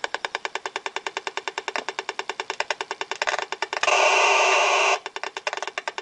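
An RF/EMF detector's speaker turning a Wi-Fi router's microwave pulses into sound: a fast, even clicking of about ten clicks a second, the router's regular beacon pulses. About four seconds in, the clicking gives way to a loud continuous buzz, a stretch of dense data transmission, which cuts off abruptly after about a second before the clicking resumes.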